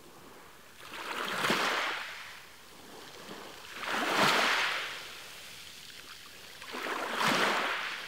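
Small sea waves breaking and washing up a sandy shore: three waves about three seconds apart, each a rush of water that swells and fades, with a quieter wash between them.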